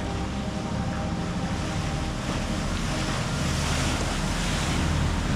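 Canal passenger boat passing close at speed. Its engine hum comes in about three seconds in over the rush of its churning wake, and the whole sound grows louder toward the end, with wind buffeting the microphone.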